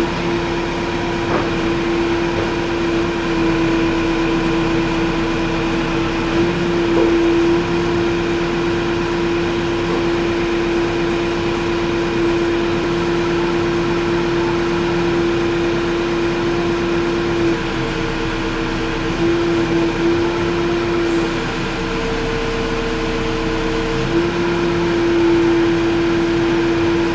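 JCB 3CX backhoe loader running steadily, a strong held whine over its engine rumble that shifts slightly in pitch a few times.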